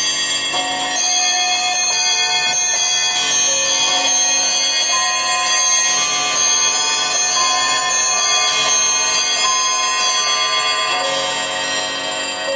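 Music played through a car's Sinfoni Maestoso component speakers, heard inside the cabin: many high, sustained notes with little bass.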